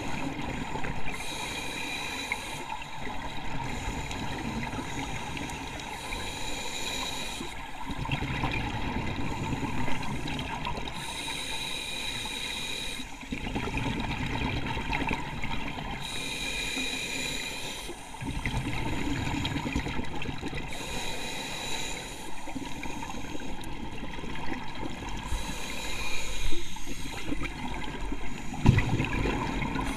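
Scuba regulator breathing heard underwater: a hissing inhale through the demand valve alternating with a rumble of exhaled bubbles, in a regular cycle of about one breath every five seconds.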